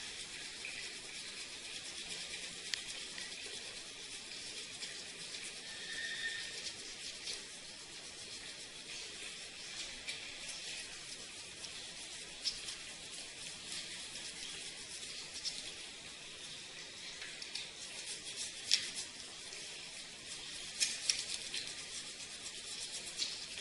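Brush scrubbing the dirty parts of an air conditioner, a steady scratchy rubbing with a few sharp clicks.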